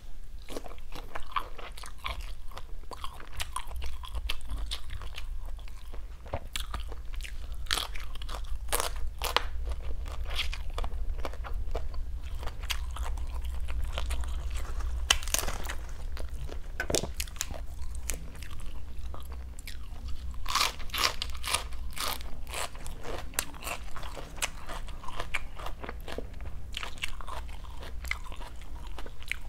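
Close-miked chewing and crunching of salt-and-chili grilled shrimp: irregular crisp crackles and wet mouth sounds, with a low steady hum underneath.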